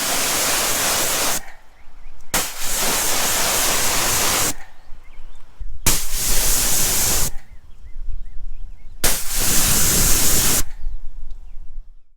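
Kranzle 1622TS pressure washer spraying water in four bursts of about one and a half to two seconds each, with quieter pauses between. Each burst starts abruptly as the trigger is squeezed.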